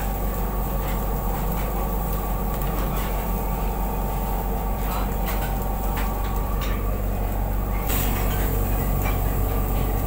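Steady low droning hum of restaurant machinery, with scattered light clicks and clinks of chopsticks and dishes; one sharper click about eight seconds in.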